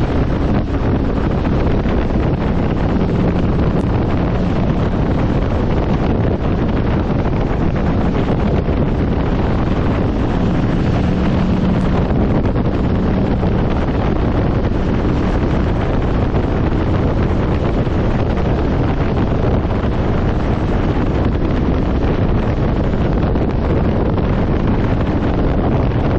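Steady, loud wind rushing over the microphone on a moving motorcycle, the Aprilia Tuareg 660's parallel-twin engine only faintly heard beneath it as a low drone at times.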